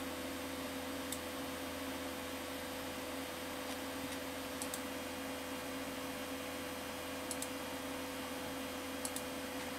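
Steady hum of a running vintage Macintosh computer, with a few faint mouse-button clicks, mostly in press-and-release pairs, as menu items are chosen in the installer.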